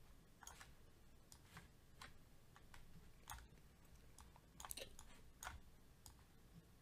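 Faint computer mouse clicks, about two a second at irregular spacing.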